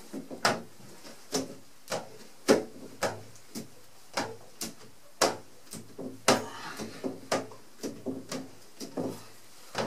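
Handheld installation squeegee swiping over wet window film on glass and knocking against the window frame at the edges: a string of short, irregular strokes, two or three a second.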